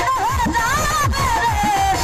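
Live Bengali Baul folk music: a high, wavering melody line that falls near the end, over drum strokes that drop in pitch, several a second.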